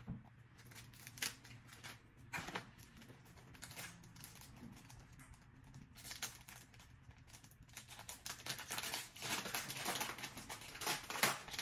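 Scissors snipping at a small blind-bag toy pack, then hands tearing and crinkling the packaging open, with the rustling getting busier near the end.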